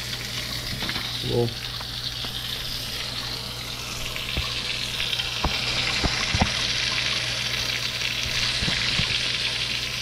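Full stream of hot water from a kitchen faucet pouring into a stainless steel sink and running down the drain: a steady splashing hiss.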